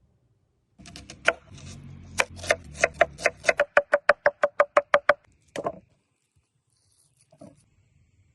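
Knife chopping on a wooden cutting board: a steady run of sharp knocks with a slight ring, quickening to about four or five strokes a second, then stopping, followed by a single louder knock.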